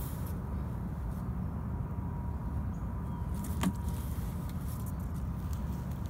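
A plastic bucket lid being pried at by hand, with one sharp click about three and a half seconds in, over a steady low outdoor rumble.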